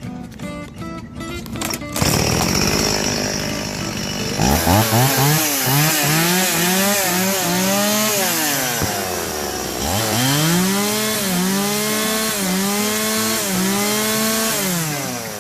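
Small 30 cc Stihl two-stroke chainsaw being test-run after a fuel-system rebuild. About four seconds in the throttle is opened and the engine is blipped repeatedly to high revs, falling back to idle briefly about nine seconds in and again near the end.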